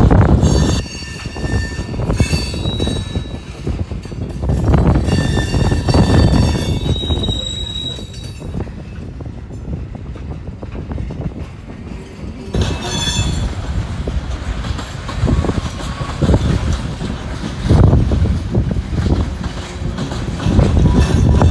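Freight cars rolling past with their wheels squealing: thin high-pitched squeals about a second in that last several seconds, then again around twelve seconds in. Gusty wind buffets the microphone with loud low rumbling.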